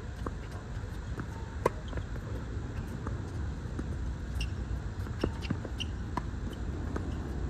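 Tennis rally on a hard court: a string of sharp pops from rackets striking the ball and the ball bouncing, the loudest about one and a half seconds in, over a steady low rumble.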